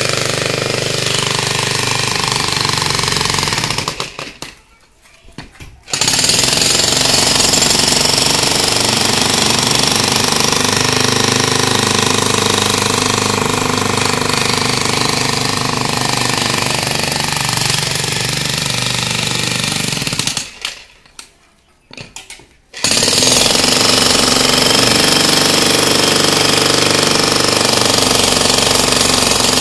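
Pro Tools 50 mm, 1600 W electric demolition hammer breaking up a concrete slab with its chisel bit, running in a continuous rapid hammering. It stops twice for about two seconds and starts again.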